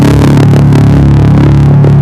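Electric bass played through a Darkglass Microtubes B3K overdrive and an SMFR fuzz pedal, holding one low, heavily distorted note that rings out steadily in a doom riff.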